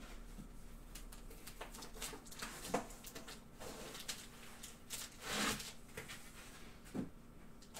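Scattered light knocks, clicks and rustles of a cardboard box and packaging being handled and unpacked, with a louder rustling scrape about five and a half seconds in.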